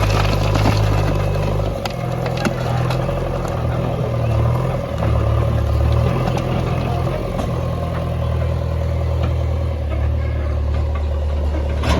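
Backhoe loader's diesel engine running under working load, its note changing about two seconds in, with a few short clanks.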